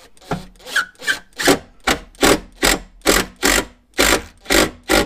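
Hand ratchet tightening the bolt of a car battery's hold-down bracket: about a dozen short ratcheting strokes, two to three a second.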